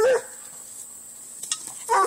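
Bluetick coonhound barking: one short bark at the start and another just before the end, with a quieter gap between.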